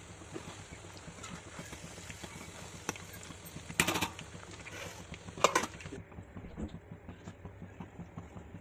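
Chicken pieces deep-frying in hot oil with a steady sizzle, and a metal slotted spoon clattering against the pan twice, about a second and a half apart, as the pieces are scooped out. The sizzle's high hiss stops about two-thirds of the way through.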